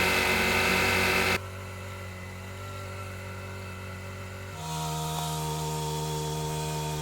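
Winch motor running steadily as it hauls on a rope to pull a concrete foundation form. It drops abruptly about a second and a half in, and about halfway through settles into a steady, higher-pitched hum.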